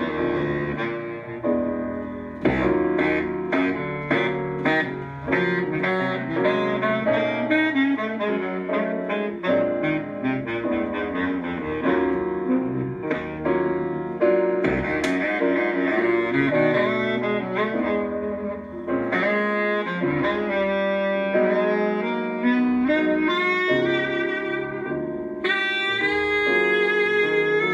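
Instrumental music played back through a hi-fi system with Lowther loudspeakers, with a quick run of notes climbing in pitch near the end.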